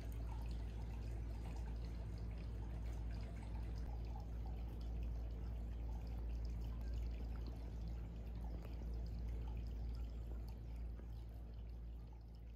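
Hot spring water pouring steadily from a spout into an open-air stone bath, a constant splashing trickle over a low rumble, fading out near the end.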